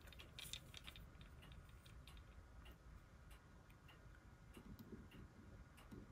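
Near silence: faint room tone with scattered light clicks, a small cluster of them about half a second in, then single ticks at irregular gaps.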